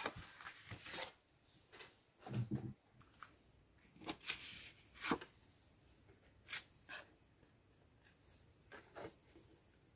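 Cardstock folio and a metal Crop-A-Dile hole punch being handled: paper rustling and a few short, light clicks.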